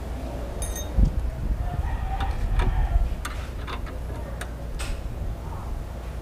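Hands working a car horn's wiring connector and mounting bracket: a series of sharp plastic and metal clicks, with a dull thump about a second in.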